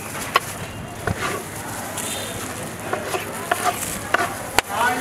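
Large knife slicing through a peeled watermelon and knocking on the cutting board, about half a dozen sharp, irregular knocks, the loudest near the end, over steady street background noise.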